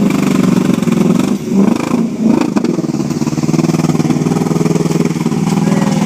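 Land Rover V8 engine running under load off-road, with the revs dropping and picking up again about one and a half to two and a half seconds in.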